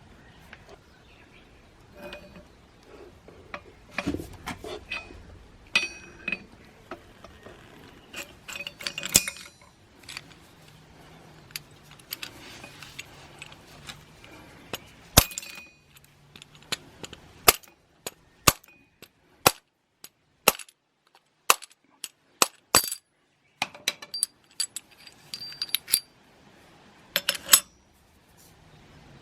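Metal transmission parts and hand tools being handled: a run of sharp clinks and knocks, some with a brief metallic ring.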